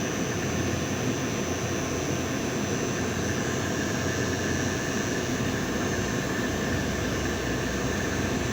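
Steady mechanical noise: an even, loud whir with a few faint steady high tones, unchanging throughout.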